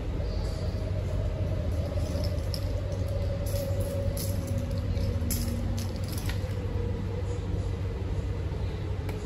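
Running noise inside an MTR Tuen Ma line C-train carriage in motion: a steady low rumble with a faint motor whine, and a few light clicks near the middle.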